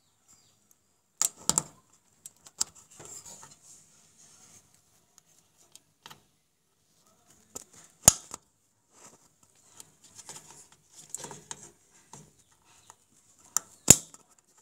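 Small metallic clicks and light scraping as a motherboard's CMOS coin-cell battery is worked loose from its metal retaining clip. Three sharp clicks stand out, a little after a second in, around eight seconds in and near the end.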